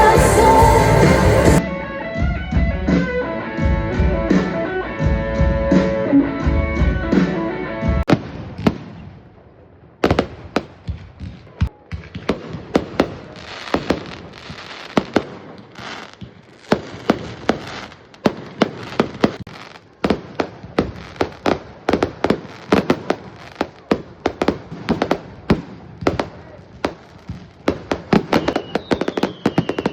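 Music playing, changing abruptly about a second and a half in and fading out by about nine seconds. Then fireworks go off: a rapid series of bangs and crackles, with a few falling whistles near the end.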